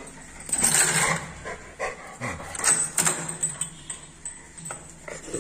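A Rottweiler on a metal chain moving about, its chain clinking in a string of short, uneven sounds.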